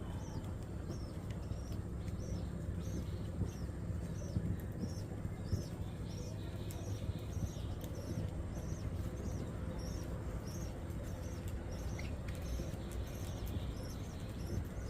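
Small birds chirping, a regular series of short high chirps at about two a second, over a steady low rumble with scattered faint clicks.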